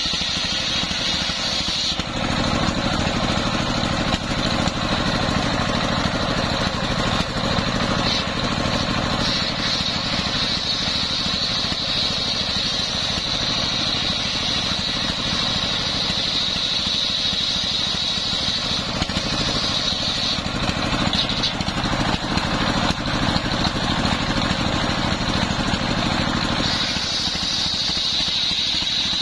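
Circular saw blade ripping a coconut-palm trunk into planks, driven by belt from a stationary engine that runs steadily throughout. The cutting grows fuller from about two seconds in and eases back near the end.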